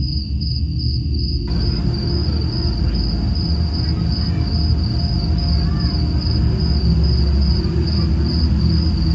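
Crickets chirping in a steady, fast-pulsing trill over a low droning music bed. A rushing hiss joins about a second and a half in.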